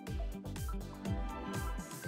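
Background music with a steady beat, each beat a deep bass note that slides down in pitch, under held higher tones.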